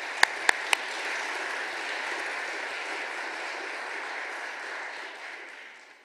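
Audience applauding, with a few loud close claps about four a second in the first second; the applause dies away near the end.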